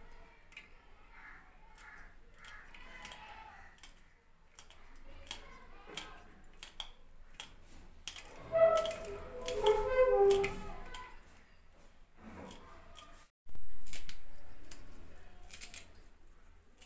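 Kitchen knife slicing green chillies held in the hand, with irregular crisp clicks of the blade cutting through. A voice is heard briefly in the middle.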